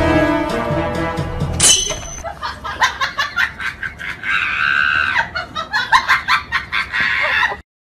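Background music that switches abruptly about two seconds in to a track with a quick regular beat, with a shrill, noisy stretch over it around the middle. It cuts off suddenly just before the end.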